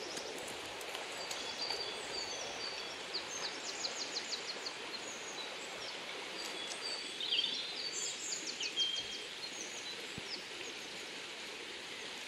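Several small songbirds chirping and singing quick trills over the steady rush of a shallow, stony river. The bird calls come in two busier spells, one a few seconds in and one around two-thirds of the way through.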